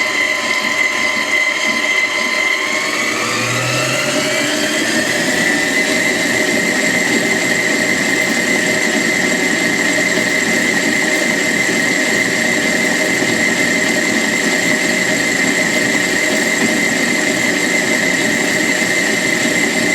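Electric stand mixer running at high speed: a loud motor whine that rises in pitch about three seconds in as the speed comes up, then holds steady.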